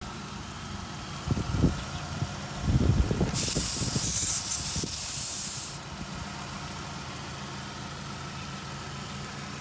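Handling knocks, then a hiss of compressed air from a tire valve stem lasting about two and a half seconds, with a click near its end. A low steady hum continues underneath.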